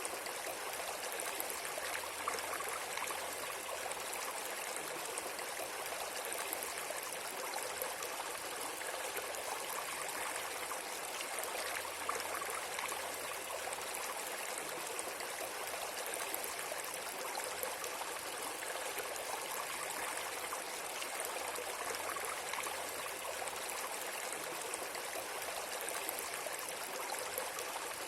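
Steady rush of flowing water, like a stream, with fine trickling and no change in level.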